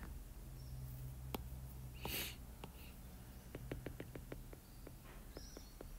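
Faint clicks of a stylus tip tapping on a tablet's glass screen during handwriting, about a dozen quick ticks over two seconds in the second half, after a soft breath.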